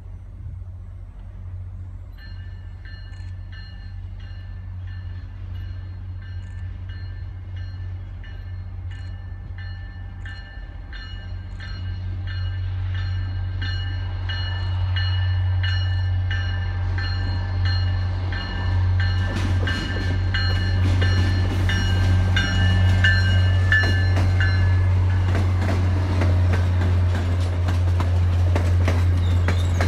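MBTA commuter rail train approaching and passing: the diesel locomotive's low engine drone grows steadily louder, and the coaches' wheels click over the rail joints as they roll by in the last ten seconds. A high ringing tone, pulsing a little over once a second, sounds over the train from about two seconds in until shortly before the coaches pass.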